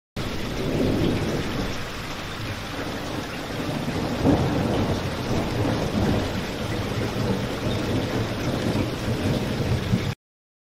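Steady heavy rain with a low rumble of thunder, swelling briefly about four seconds in. It cuts in suddenly and stops abruptly.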